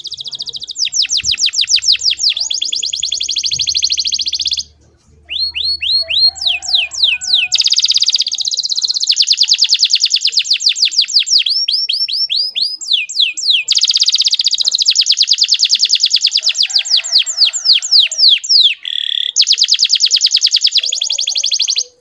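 Domestic canary singing long rolls: fast runs of repeated falling notes that change speed from run to run, with a short break about five seconds in and another near the end, then the song cuts off suddenly.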